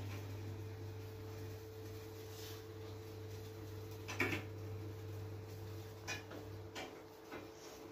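Kitchen cooking sounds: a few light knocks and clatters of a utensil against a pan on the stove, the loudest about four seconds in, over a steady low hum that stops near the end.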